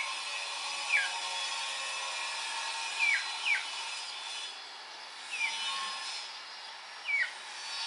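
Short, sharp bird chirps, each sliding quickly downward in pitch, about six of them spaced a second or two apart. Under them runs a steady droning hum made of several held tones.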